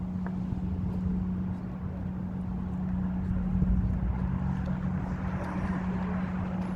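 Outdoor vehicle noise: a steady low engine hum with a rushing sound that swells in the second half, as of a vehicle passing.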